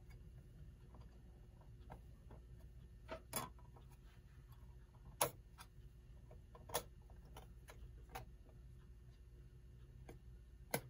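Light, irregular clicks and taps of small metal clock parts and tools being handled during disassembly, about six over several seconds with the sharpest two in the middle and near the end, over a faint steady low hum.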